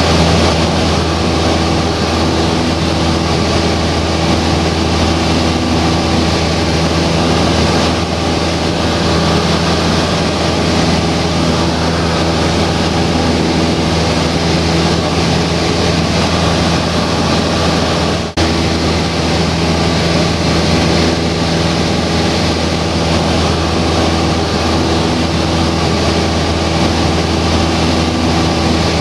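Cessna 172 Skyhawk's piston engine and propeller running steadily in level flight, heard from inside the cabin. The sound drops out for an instant about 18 seconds in.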